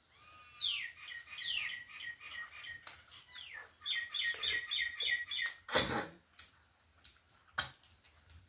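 A bird singing: several quick falling whistles, then a fast run of repeated chirps. A short, loud knock comes about six seconds in, and a smaller click follows later.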